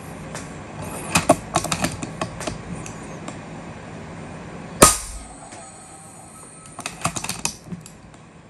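A single shot from an FX Impact .30-calibre PCP air rifle, a sharp crack about halfway through and the loudest sound here, as the boar is hit and drops. Clusters of light, quick clicks come before and after the shot.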